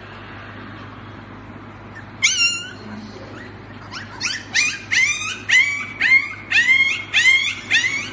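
Husky puppy yipping in short, high-pitched calls that each rise and fall: one about two seconds in, then a quick run of about eight from four seconds on.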